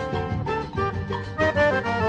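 Instrumental passage of a recorded forró song with no singing: an accordion plays a melody over the band's steady beat.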